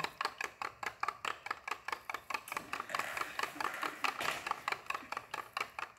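Wooden stirring stick knocking against the sides of a plastic cup as paint is mixed: fast, fairly even clicks, about six a second.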